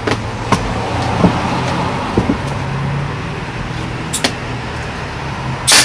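Upholstery stapler driving a staple through TPO roofing membrane into a wooden curb: one loud sharp snap near the end. Before it, a few light clicks from the membrane and clamps being handled, over a steady low hum.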